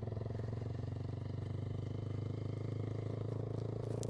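Motorcycle engine running at a steady speed while riding, its pitch holding even with no revving.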